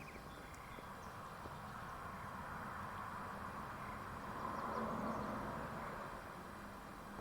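Faint outdoor background noise, a soft steady rush that swells a little about five seconds in and then fades back.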